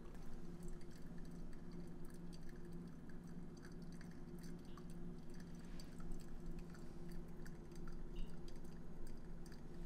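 Faint wet sloshing and small scattered ticks from a pour-over brewer of coffee slurry being swirled by hand and draining through its paper filter into a glass carafe, over a steady low hum.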